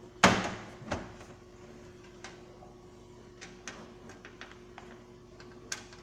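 Front panel of a Frigidaire LFMV164QFA over-the-range microwave knocked into place by hand: a sharp metallic clunk just after the start and a smaller one about a second in, then scattered light clicks and taps.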